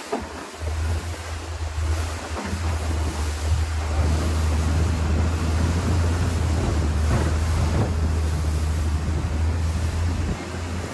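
Longtail boat's engine running steadily, with wind buffeting the microphone and water rushing past the hull.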